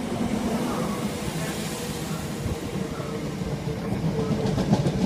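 Great Northern Class 317 electric multiple unit running along the platform close by: a steady electric hum over the rumble of wheels on the rails, with a few sharp wheel clicks near the end.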